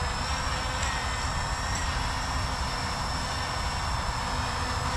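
Quadcopter drone flying back low toward its landing pad, its propellers giving a steady high-pitched whine over a rushing hiss.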